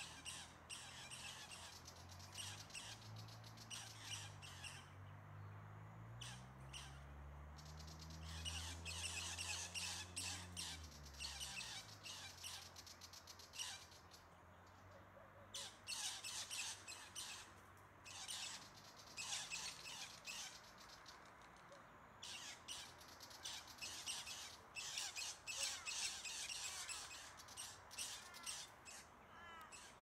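Birds chirping and chattering in repeated bursts among eucalyptus trees. Under them, a faint low hum rises and then fades out about twelve seconds in.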